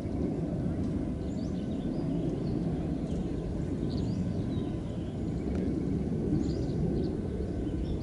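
Steady low rumble of outdoor background noise, with faint, scattered small-bird chirps above it.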